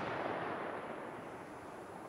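Rolling echo of a volley of aerial firework bursts, fading away steadily with no new bangs.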